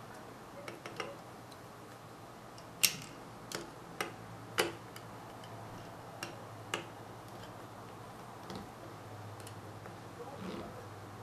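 Irregular light clicks and taps of small metal carburetor parts and tools being handled during reassembly, the sharpest about three seconds in, over a faint steady low hum.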